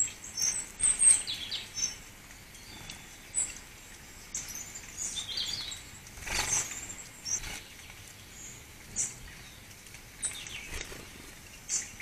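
Small garden birds chirping with short, high calls scattered throughout, busiest in the first couple of seconds. There is a brief rustling noise about six seconds in.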